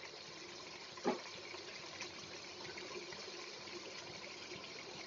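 Watery onion-masala gravy simmering in a kadai: a faint, steady bubbling hiss. One short, soft knock comes about a second in.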